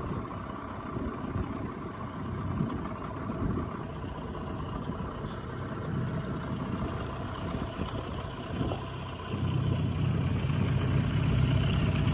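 25 hp Yamaha outboard motor running as the aluminium tinny moves along, with water and wind noise. The engine gets louder about nine seconds in.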